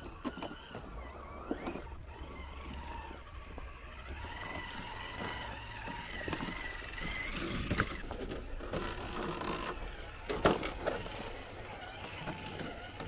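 Electric motors of 1/10-scale RC crawlers whining and rising and falling in pitch with the throttle as they climb over loose rocks, with scattered clicks and knocks of tyres and chassis against the stones. The loudest knock comes about ten and a half seconds in.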